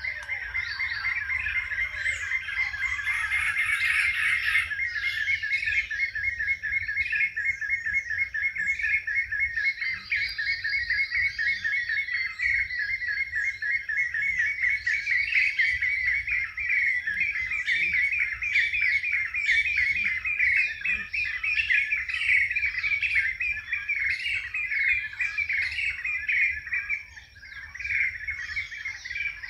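Birds chirping and twittering without pause: a dense, fast chatter with many short, higher chirps over it. The chatter drops away for a moment near the end.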